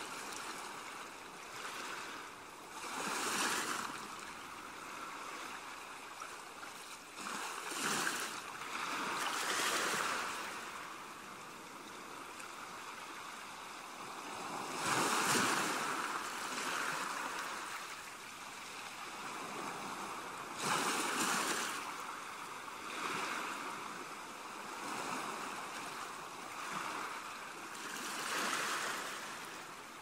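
Small Black Sea waves washing onto a pebble beach, each wash swelling and fading every few seconds over a steady hiss of sea.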